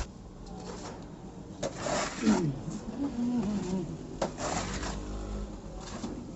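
A putty blade scraping rustic texture material across a wall in a few short strokes, each about half a second long. A brief low wavering voice or call sounds between the first two strokes.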